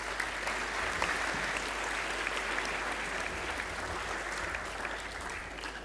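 An audience applauding steadily after a speech, the clapping dying away near the end.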